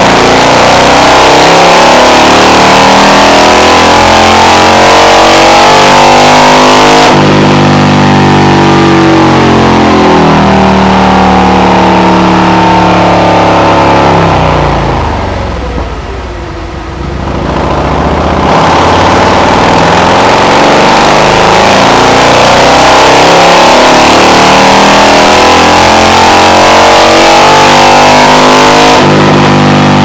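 Harley-Davidson Milwaukee-Eight V-twin revving hard under load on a chassis dyno, its note climbing steadily in pitch. About halfway through it drops back and quietens for a few seconds, then climbs again.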